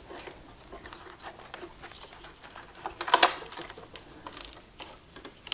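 Light clicks and scraping of a screwdriver working at an electric unicycle's controller board, with a louder cluster of sharp clicks about three seconds in.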